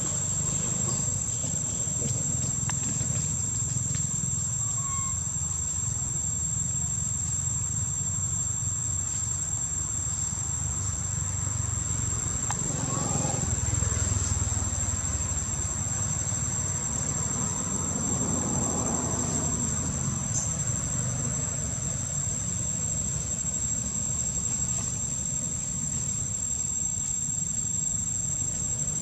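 Insects droning steadily in a high, unbroken tone, over a low rumble that swells briefly about halfway through.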